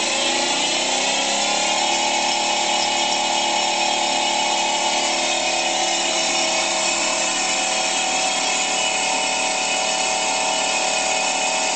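Electric motor belt-driving the crankshaft of an Elliott Bay triple-expansion steam engine in its main bearings to run them in: a steady machine whine that rises in pitch over the first couple of seconds as it speeds up, then holds steady.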